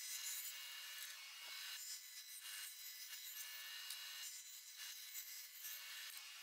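Bandsaw ripping a pine board into strips: a faint, steady rasp of the blade cutting the wood, swelling and easing as the board is fed through.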